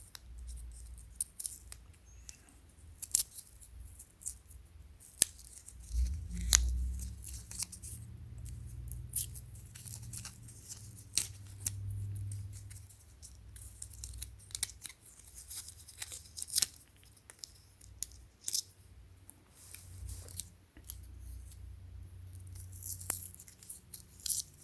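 Plastic packaging of a charging cable being handled and pulled open: irregular crinkles, rustles and sharp clicks throughout.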